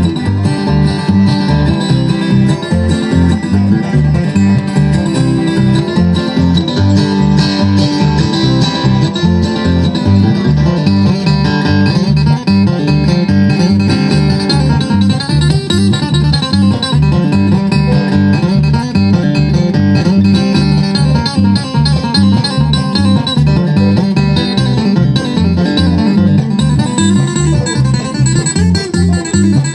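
Bluegrass band playing a fast instrumental live, with banjo and guitar picking over a steady beat in the bass.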